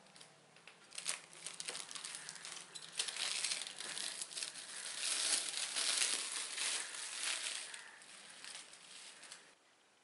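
Clear plastic wrap crinkling and crackling as it is pulled off a drip coffee maker. It is loudest in the middle and dies away near the end.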